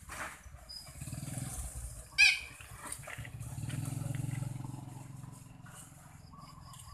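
A dog growling in two low, rumbling stretches, with one short, sharp high-pitched squeal a little over two seconds in.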